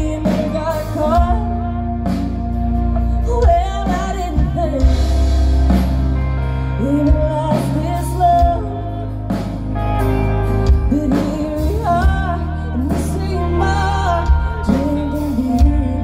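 Live band music heard from within the crowd: a woman singing over acoustic guitar, electric guitar and drums, with a heavy, steady low end and regular drum hits.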